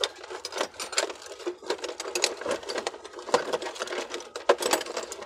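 Quick, irregular light metal taps, several a second, as a new oil seal is tapped gently and evenly into the steering gear box housing of a Mercedes-Benz Actros truck.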